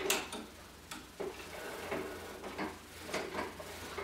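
Tulle fabric rustling as it is gathered by hand, with scattered light clicks, the sharpest right at the start.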